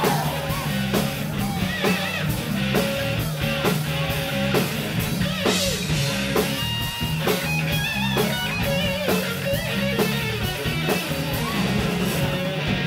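Live hard rock band playing an instrumental break: an electric lead guitar solo of bent, wavering notes over driving drums, bass and rhythm guitar.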